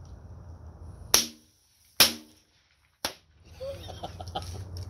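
Small stick firecrackers exploding: three sharp bangs about a second apart, each followed by a moment of near silence.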